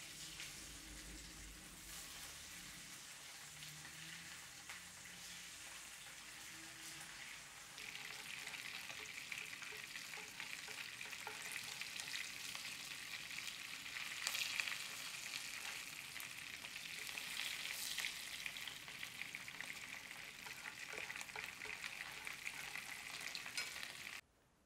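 Beef meatballs frying in foaming fat in a nonstick frying pan: a steady sizzle with fine crackle, with a few light taps of chopsticks turning them. The sizzle grows louder about a third of the way in and cuts off abruptly near the end.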